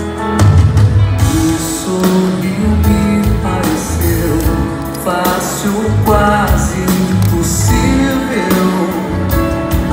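Live band playing an instrumental song opening: guitar and bass over a steady drum beat.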